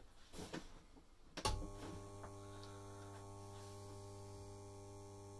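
An old 12-volt battery charger is switched on with a sharp click about a second and a half in. Its transformer then hums low and steady while it powers a saltwater electrolysis cell.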